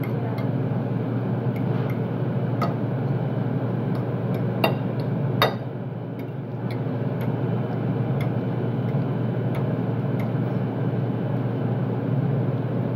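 Steady ventilation hum in a commercial kitchen, with a few sharp clicks of a fork and knife against a ceramic plate. The loudest two clicks come about five seconds in.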